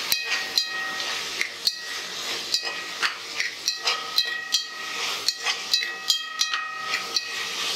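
A spatula stirring onions, tomato, green chillies, mint and coriander frying in oil and ghee in a metal pressure cooker. It knocks against the pot about twice a second, with a short metallic ring each time, over a steady sizzle.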